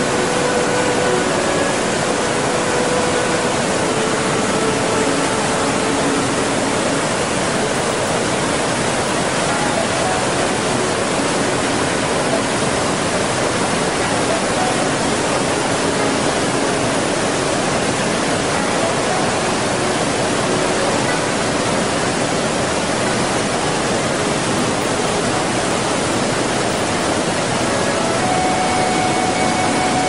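Waterfall: water pouring and splashing in a steady, unbroken rush.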